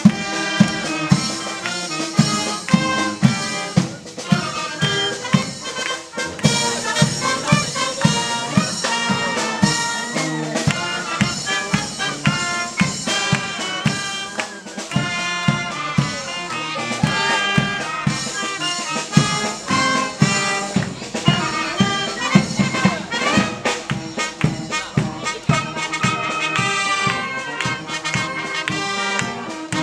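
Wind band music, with brass over a steady drum beat.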